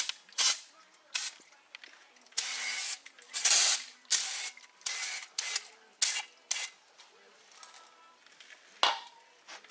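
Aerosol brake cleaner sprayed onto the brake parts in a string of short hissing bursts, with sharp clicks and knocks of handling between them. The bursts thin out about seven seconds in.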